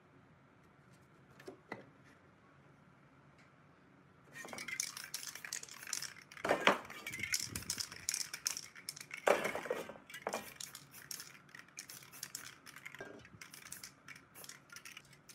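Aerosol spray paint cans hissing in short, repeated bursts onto a board, starting about four seconds in, mixed with clinks of the metal cans being handled.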